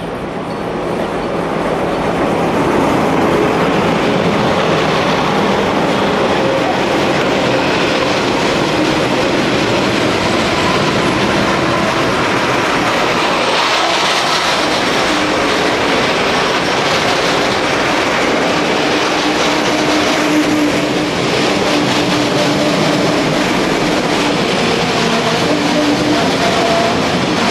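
Wagons of a BVZ metre-gauge freight train rolling past at close range, the wheel noise building over the first two seconds and then holding steady. In the later part a high, steady wheel squeal rings over the rolling noise as the wagons take the curve.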